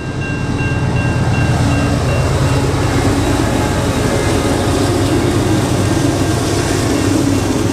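Train running, a steady loud rumble with a low engine drone.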